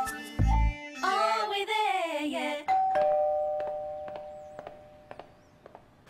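Closing bars of a TV theme song, then a two-note doorbell chime: a higher note and then a lower one, ringing on together and fading away over about two seconds.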